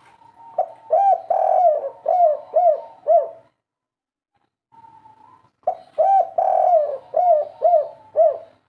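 Spotted dove cooing: two phrases of five or six short, rounded coos each, with a pause of about two seconds between them.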